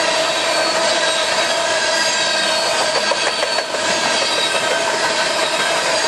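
Empty coal hopper cars of a long freight train rolling past, their wheels squealing in steady high ringing tones over the continuous rumble of the train. A brief clatter of wheel clicks comes about three and a half seconds in.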